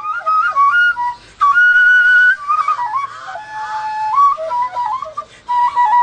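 Background music: a high, piping melody of held and stepping notes, broken by short pauses.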